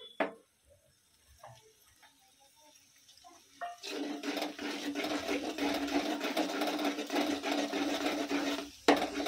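Metal spatula scraping rapidly and steadily against a wok while scrambling eggs into fried noodles. It starts about four seconds in and breaks off briefly near the end.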